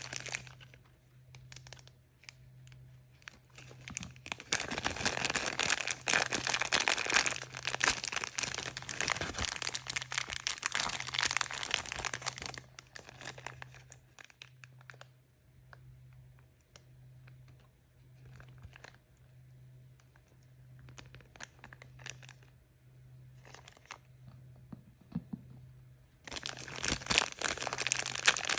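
Crinkly packaging being handled and torn open by hand. A long stretch of dense crinkling and tearing is followed by a quieter spell of scattered small rustles and clicks, and dense crinkling starts again near the end.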